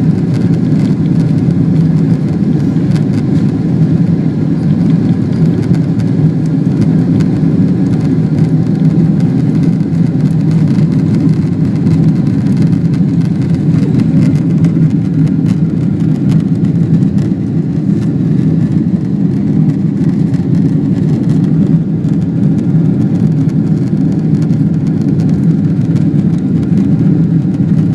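Boeing 777-200 twin-jet engines and rushing air heard from inside the cabin at takeoff power: a steady, loud low rumble.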